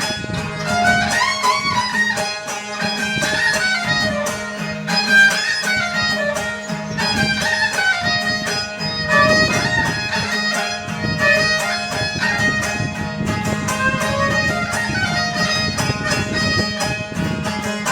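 Background music: a bowed-string melody with a steady drone and a beat, in a folk style.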